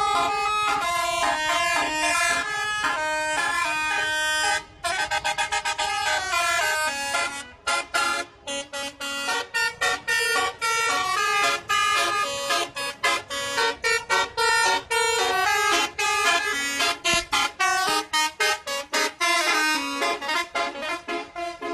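Bus telolet horn, a multi-tone horn, playing a tune: held notes stepping up and down in pitch, then from about five seconds in a quick run of short, choppy blasts.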